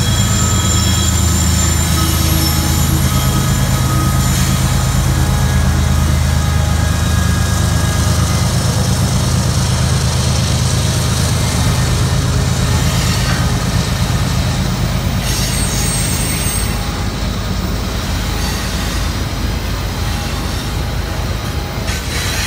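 CSX diesel freight locomotives running past at close range, their engines a deep steady drone that fades about two-thirds of the way through. Then double-stack container cars roll by with steady rail noise and thin high squeals from the wheels on the curve.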